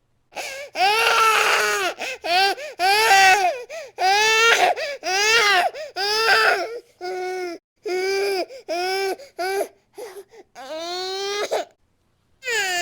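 Baby crying hard in a rapid string of short wails, each arching up and down in pitch, with quick catches of breath between them; the crying stops briefly near the end.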